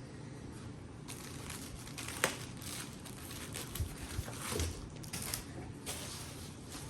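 Packing material crinkling and rustling as it is handled while parts are taken out of a box, with a sharp click about two seconds in and a few dull knocks later.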